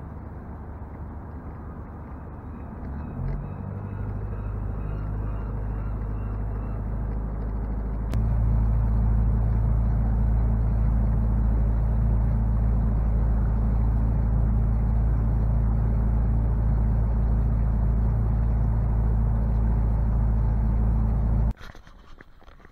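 Engine of a wooden Atkin Ingrid ketch running under power, a steady low drone. It grows louder about three seconds in and again about eight seconds in, then cuts off suddenly near the end.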